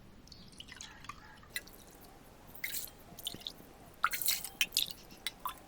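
Water being poured into a cooking pot, heard as faint, irregular splashes and drips that come more often near the end.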